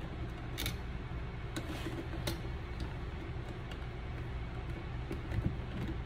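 Quiet handling: a few faint clicks and taps over a low steady hum, as a mounting screw is set against a dimmer switch's metal strap with a cordless drill-driver.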